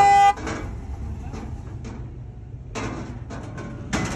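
A vehicle horn gives a short loud honk, the last of a quick series, then stops. Over the next few seconds come softer knocks and clunks, with a couple of brief louder rattles near the end.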